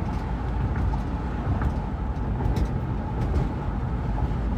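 Steady road and engine noise heard from inside a moving car's cabin, a low even rumble with no sudden events.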